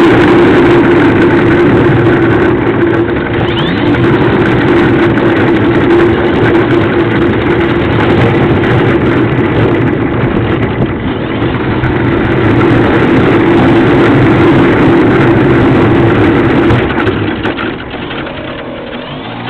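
A model airplane's motor and propeller running steadily, heard from a camera mounted on the plane as it rolls on the ground. Near the end the motor is throttled back and the sound drops to a quieter run.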